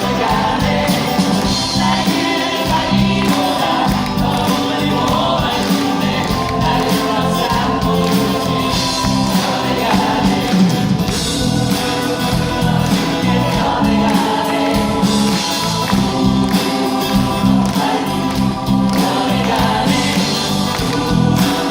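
Several voices singing together over live band accompaniment.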